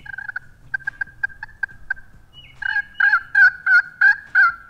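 Crystal-over-slate turkey pot call from JT Custom Calls, scratched with a wooden striker, imitating a hen: a run of short, quick notes, then a series of louder yelps about three a second.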